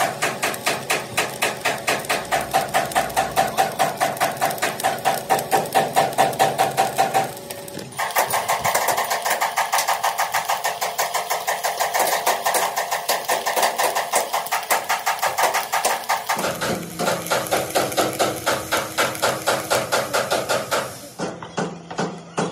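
A machine knocking in a fast, steady rhythm, several sharp blows a second, its tone shifting abruptly about a third and two thirds of the way through.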